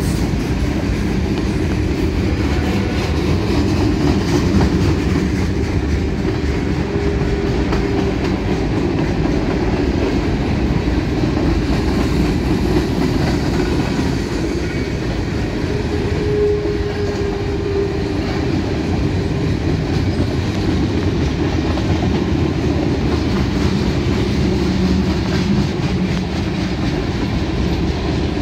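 Freight cars of Norfolk Southern train 31T rolling past at speed: a steady, loud rumble of steel wheels on rail with fast clicking.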